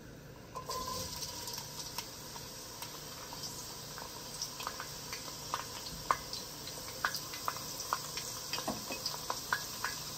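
Chopped red onions dropped into hot palm oil in a pot, which starts a steady sizzle about half a second in, with scattered crackles and pops as they fry.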